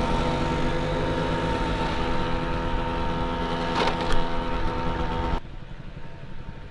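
Small motor scooter engine running at a steady speed, with a brief knock a little before four seconds in. The engine sound cuts off abruptly about five seconds in, leaving quieter outdoor background noise.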